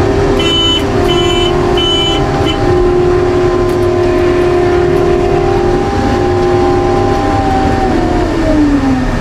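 Combine harvester running, heard from the cab: a steady mechanical whine over the engine, with three short high beeps in the first two seconds. Near the end the whine falls in pitch as the machine slows.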